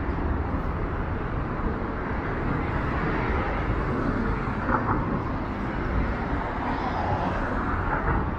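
Busy city street ambience: a steady, low traffic rumble with general outdoor noise.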